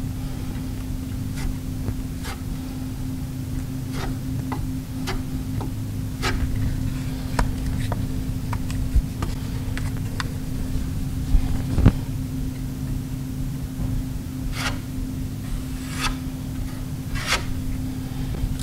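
Plastic spreader scraping Bondo body filler over a filled hole in a steel door: short scraping strokes at irregular intervals, about one a second, over a steady low hum.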